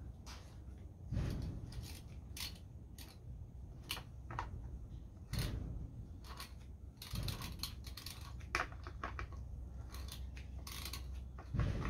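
Scattered clicks, taps and short scrapes of hard plastic parts being handled and fitted together on an Oregon CS1400 electric chainsaw, over a low rumble.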